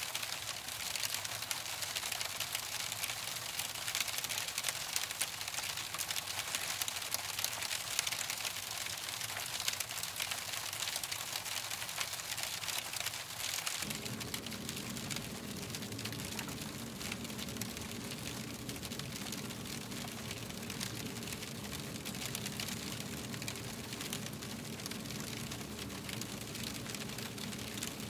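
Steady rain pattering on an asphalt-shingle roof and metal gutter, a dense hiss of many small drop ticks. About halfway through, a low steady hum comes in under the rain.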